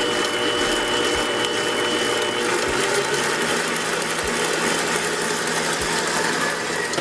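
Electric bowl-lift stand mixer running steadily, its beater working batter in a steel bowl. Its tone shifts about two and a half seconds in.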